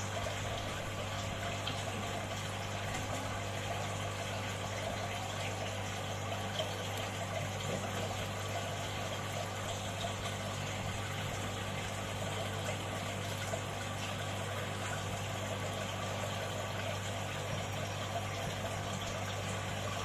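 An aquarium pump runs steadily with a constant low hum, with water trickling and splashing.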